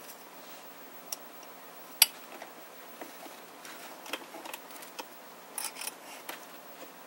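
Scattered light clicks and ticks, with one sharp, loud click about two seconds in and a quick cluster of clicks just before six seconds.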